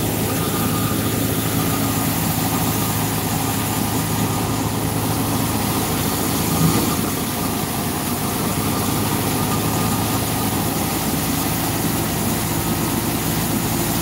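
Stationary wheat thresher running steadily while straw is fed in: a continuous machine hum with a steady low drone, and a brief louder surge about seven seconds in.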